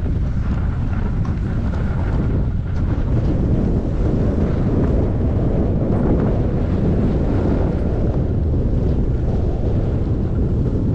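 Steady wind buffeting the microphone of a skier's camera on the way downhill, a low rumbling rush, with skis sliding on packed snow mixed in.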